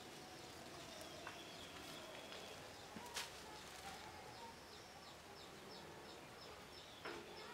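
Faint outdoor ambience with small birds or insects chirping. In the second half a short high chirp repeats about three times a second, and a single click comes a little after three seconds.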